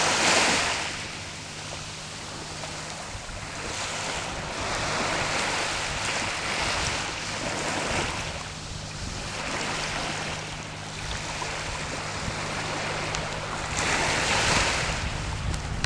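Small sea waves washing onto the shore, the rush swelling and fading every few seconds, loudest at the start and again near the end.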